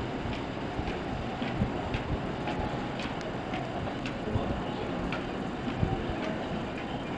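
Sunrise Seto sleeper train, a 285-series electric train, rolling through a station without stopping: a steady rumble with its wheels clicking over the rail joints about twice a second.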